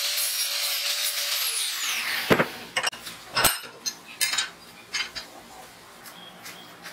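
Angle grinder running against a steel plate, a steady high whine that winds down in pitch as it is switched off about two seconds in. Several sharp knocks and smaller clicks follow.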